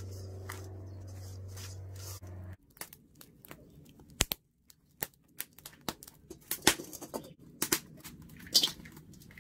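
Wood fire crackling in a metal drum stove: irregular sharp pops and snaps, a few of them loud. Before that, for about two and a half seconds, there is a steady low hum with soft rubbing of fish in a stainless steel bowl, which cuts off abruptly.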